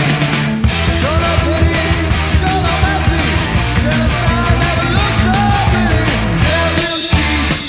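Speed metal recording: distorted electric guitars, bass and drums playing hard and fast, with a brief stop in the band near the end.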